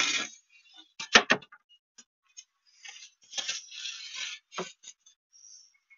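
Irregular knocks, taps and rattling of objects being handled and set down, with a sharp double knock about a second in and a single knock near the end.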